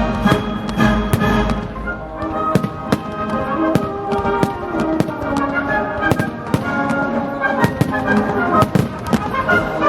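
Festive fireworks salute: irregular sharp bangs, sometimes several a second, over loud orchestral music with brass playing from loudspeakers.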